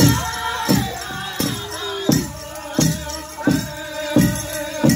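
Powwow drum group singing a men's chicken dance song over a big drum struck in a steady beat, a little under one and a half beats a second.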